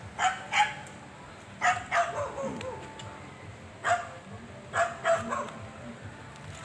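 A dog barking in short barks, singly and in pairs, four bouts of them.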